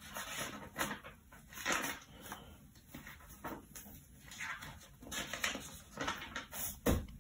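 Faint, irregular rustles and scratches, about one a second, with a single soft knock near the end.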